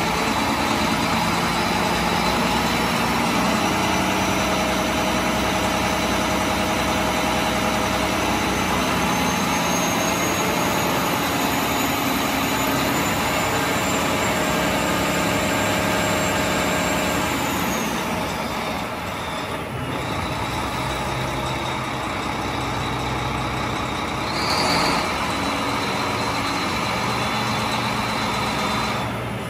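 Volvo Penta D12-450, a 12-litre inline-six turbo diesel marine engine, running steadily at close range. A faint high whine slowly rises in pitch and fades out a little over halfway through, and a short burst of noise comes about 25 seconds in.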